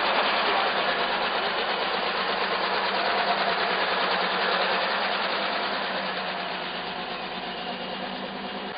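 Vintage car's engine running as the car pulls away, steady and fading gradually.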